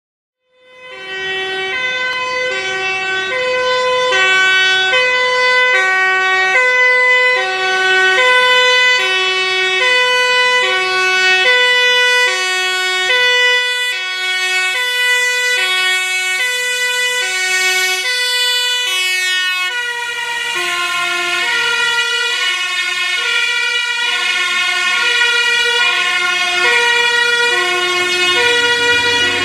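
Dutch fire engine's two-tone siren, switching between a high and a low note about once a second. About two-thirds of the way through, as the truck passes, the tones drop slightly in pitch and the truck's engine and tyre noise comes up under them.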